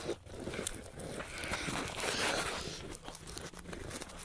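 Footsteps crunching through snow, an uneven run of crunches.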